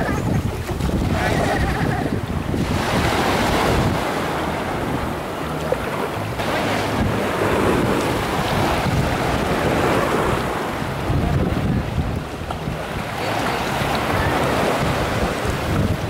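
Small sea waves washing in and foaming around shallow water at the shoreline, surging every few seconds, with wind buffeting the microphone as a low rumble.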